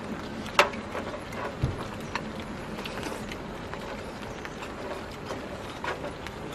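Scattered light clicks and taps of chopsticks and tongs against stainless steel bowls and a metal serving pan, with one sharper click about half a second in and a dull knock a little later, over a steady background hiss.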